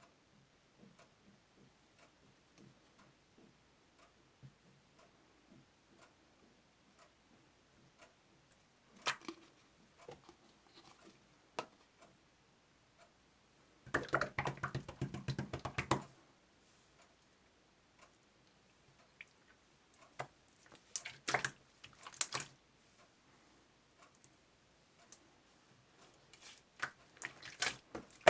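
Faint scattered clicks and taps, like light tapping on keys or a screen, in irregular clusters. About fourteen seconds in there is a two-second run of rapid clicks over a low hum.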